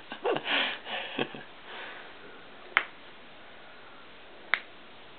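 Two sharp finger snaps, about a second and a half apart, after a few short breathy sounds near the start.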